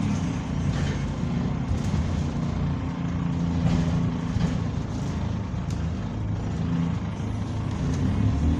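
Bus diesel engine running, heard from inside the passenger saloon as a steady low drone that shifts slightly in pitch. The engine has been upgraded, which the uploader says makes it sound like an older Euro 3 bus.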